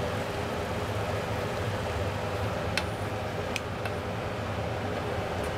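Fish simmering in broth in a small aluminium pan over a gas burner: a steady hiss of bubbling and flame, with a few light clicks of chopsticks against the pan around the middle.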